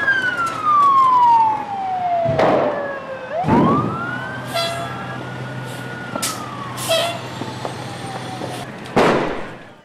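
Fire engine siren falling in pitch, then winding back up about three and a half seconds in and slowly sliding down again. Several loud bangs cut in, the loudest at the start and near the end, over a low steady engine hum.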